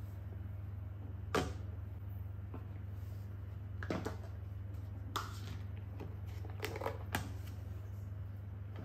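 Plastic and stainless-steel lunchboxes handled on a wooden table: a few separate clicks and knocks as a box is set down, a lid is lifted off and snap latches are undone, with a quick cluster of clicks near the end. A steady low hum runs underneath.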